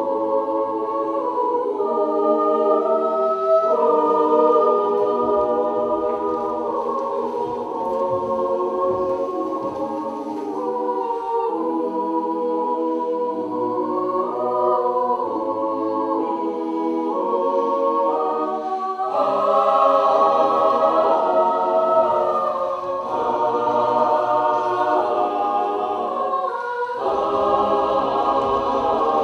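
Voices singing sustained chords in harmony, choir-style, the chords moving slowly from one to the next and swelling louder a little past halfway.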